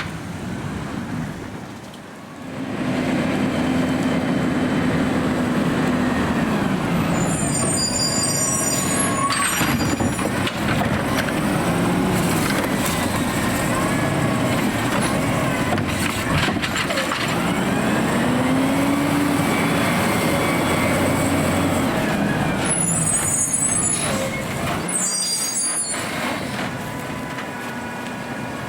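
Automated side-loader garbage truck running, its engine revving up and falling back several times as it powers the hydraulic lift arm. Short high-pitched squeals come twice, about seven seconds in and again near the end, and the truck goes quieter after that.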